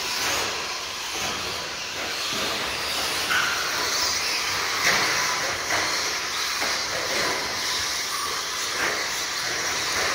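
RC stadium trucks racing on a dirt track: short motor whines rising and falling over a steady hiss.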